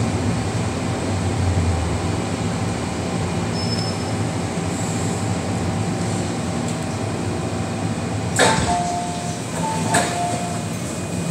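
Inside an MTR M-Train car: steady running noise as the train slows into a station, then a sudden loud burst about eight seconds in as the doors open, followed by a two-note chime that sounds twice.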